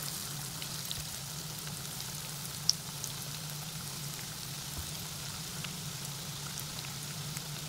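Marinated, flour-coated chicken strips deep-frying in hot sunflower oil in a pan: a steady sizzle with fine crackling, and one sharper crackle about two and a half seconds in.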